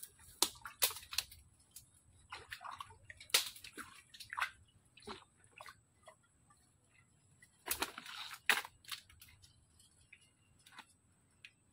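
Irregular sharp clicks and short wet sloshes of mud and shallow water as a crab burrow in mangrove mud is probed. The busiest, loudest cluster comes about eight seconds in.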